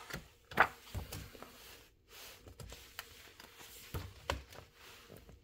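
Handling noises: rustling with several light knocks and clicks, the sharpest a little over half a second in and two around four seconds in.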